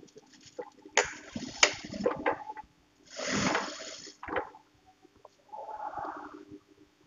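Fabric rustling and sliding on a sewing table as it is folded and arranged under the presser foot of an industrial sewing machine. A few small clicks and scrapes come first, then a longer rustle that swells and fades about three seconds in.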